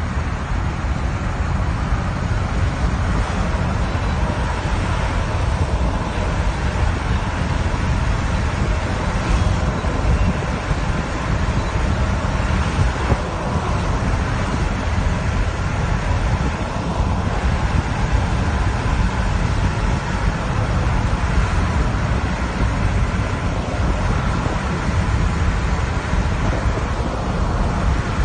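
Steady road and wind noise of a vehicle travelling at highway speed, with wind buffeting the microphone in a low, unbroken rumble.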